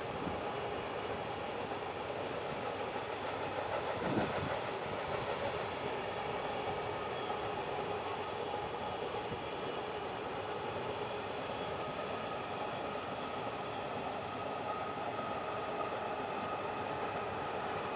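Empty iron ore wagons rolling past on the rails with a steady rumble, and high-pitched wheel squeals that come and go, one about three seconds in and a higher one around ten seconds in.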